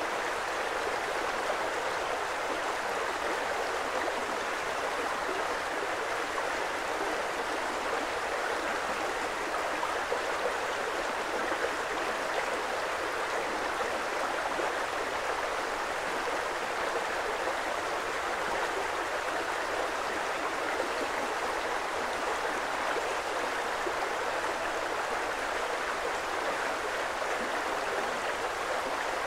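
Creek water flowing steadily: an even, unbroken rush of running water.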